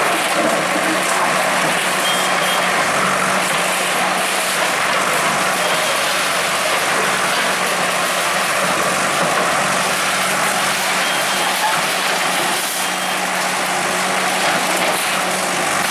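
Bulldozer's diesel engine running steadily amid street noise, with a few short, faint high beeps.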